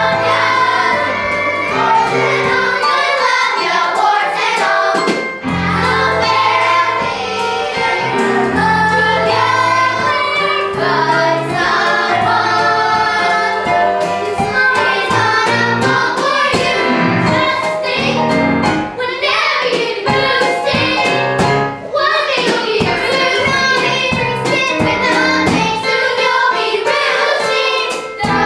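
Children singing a musical-theatre song together with instrumental accompaniment and a steady bass line.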